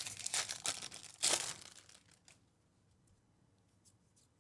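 A foil trading-card pack wrapper torn open and crinkled by hand, with a loud rip about a second in; the crackling stops after about two seconds, leaving a few faint ticks.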